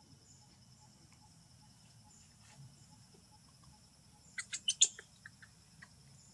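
A quick run of five sharp, high chirps a little past the middle, then three fainter ones, over a steady high insect drone.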